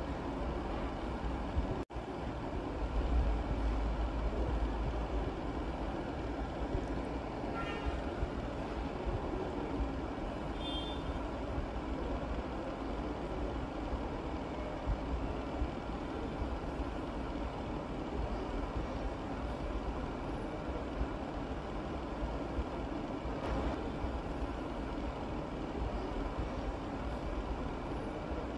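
Steady low rumble and hiss of background noise, with a brief dropout about two seconds in.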